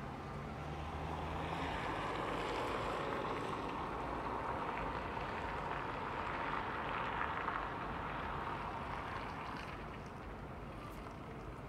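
Distant boat engines across a crowded harbour, a steady noisy drone that swells over the first couple of seconds and eases off near the end.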